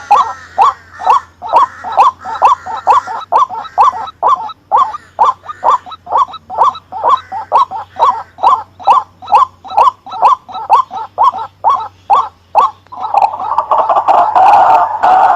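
White-breasted waterhen calling: a loud series of short notes repeated evenly about three times a second, running together into denser, continuous calling about 13 seconds in.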